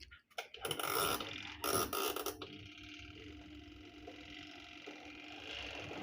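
Twin-tub washing machine's spin dryer being started: a few knocks and clatters in the first couple of seconds, then the spin motor running with a steady hum that grows louder toward the end as the drum spins up.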